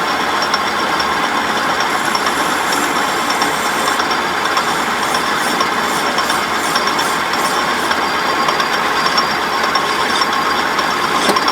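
Metal lathe running steadily.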